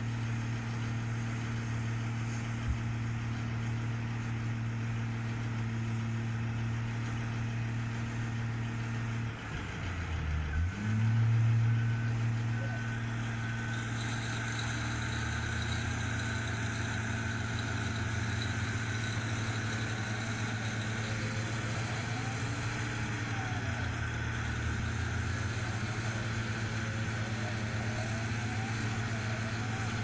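Heavy diesel engines of a Cat tracked excavator and a large mining dump truck running with a steady low drone. About ten seconds in, an engine's pitch dips and then rises as it revs up louder, before settling back.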